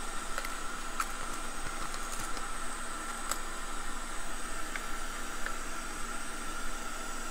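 Steady hiss of workbench background noise, with a faint high whine and a few light clicks.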